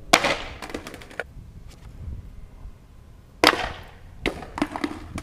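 A skateboard clattering on hard surfaces: sharp wooden knocks and clacks, a loud one at the start and another about three and a half seconds in, each followed by smaller bounces.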